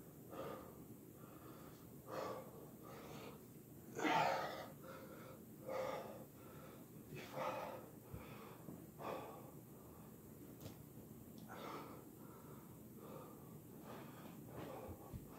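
A man breathing hard through his mouth, out of breath while recovering from a long run of push-ups: heavy breaths about every one and a half to two seconds, the loudest about four seconds in.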